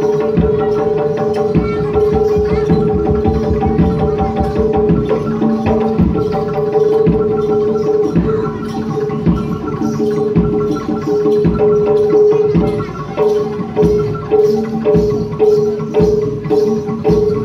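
Jaranan music from a gamelan-style ensemble: hand drums and struck metal percussion keep a dense, even rhythm under one loud held tone.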